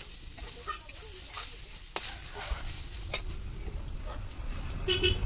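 Metal spatula stirring and scraping grated coconut around a steel kadai, a steady dry scratching with a few sharp clinks of metal on the pan, as the coconut is roasted over a wood fire.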